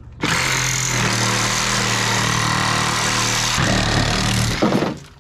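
Cordless reciprocating saw with a demolition blade cutting through a pickup truck's steel roof pillar, running steadily. It falters briefly about three and a half seconds in and stops just before the end.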